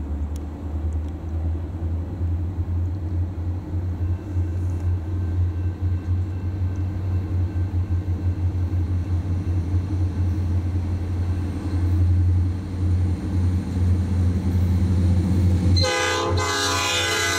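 Norfolk Southern EMD SD40-2 diesel locomotives approaching, their 16-cylinder two-stroke engines giving a low rumble that grows louder. Near the end the locomotive horn starts, a loud multi-note chord blast.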